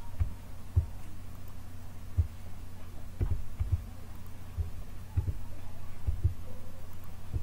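A steady low hum with about a dozen dull, irregular low thumps over it, some in quick pairs: desk knocks from keyboard and mouse use carried to the microphone.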